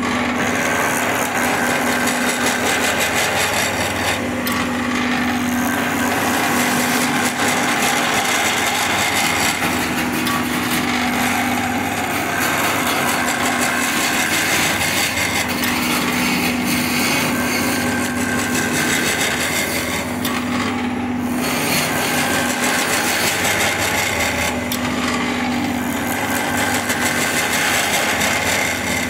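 Wood lathe running as a turning tool cuts the spinning wood: a steady rough cutting noise over a humming tone that comes and goes every few seconds.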